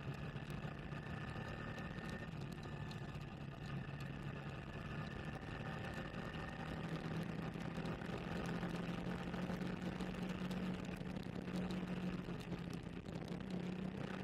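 Motorcycle engine running under way, its pitch climbing gradually from about six seconds in as the bike speeds up, over a steady hiss of tyres on a wet road.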